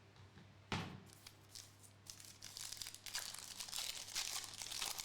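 Trading-card pack wrapper being torn open and crinkled: a sharp rip about a second in, then crackling and crinkling of the wrapper through the last few seconds.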